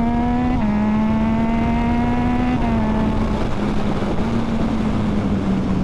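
2014 Yamaha MT-09's 847 cc three-cylinder engine pulling hard under riding wind noise, its pitch climbing and then dropping sharply twice, about half a second in and again near the middle, as it shifts up through the newly fitted quickshifter; after that it runs steadier.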